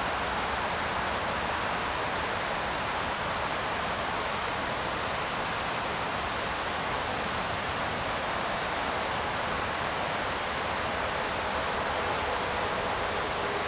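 Shallow creek water running steadily over a rocky riffle, an even rushing without change.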